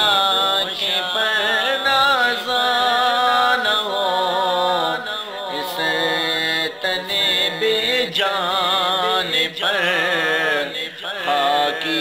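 Islamic devotional background music: a voice sings a wavering, ornamented melody over a steady held drone.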